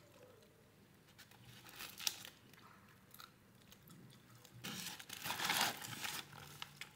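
White paper sandwich wrapper crinkling as the sandwich is handled and bitten into, loudest for about a second and a half around five seconds in, with biting and chewing sounds.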